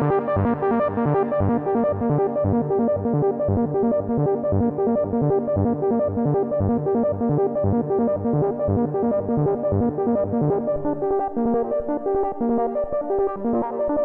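Behringer MonoPoly analog synthesizer playing a fast, rhythmically repeating arpeggio with its oscillators cross-modulated and synced, giving a shifting modular-style pattern. About eleven seconds in, the lower notes drop out and the pattern changes as the knobs are turned.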